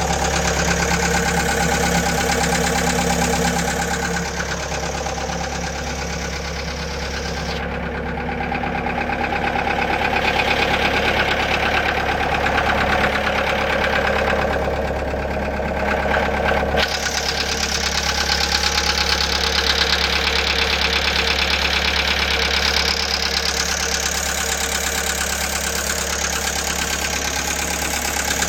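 Gehl 6635 skid steer's engine running continuously, its level dipping for a few seconds early on and then rising again.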